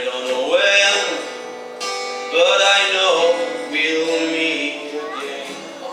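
Live music: an acoustic guitar strummed, with a voice singing over it.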